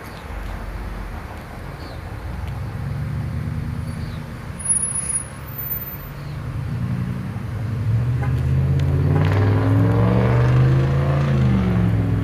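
Delivery truck engine running, then revving up about eight seconds in as the truck pulls away. Its note climbs and then drops back near the end. A brief loud noise comes about five seconds in.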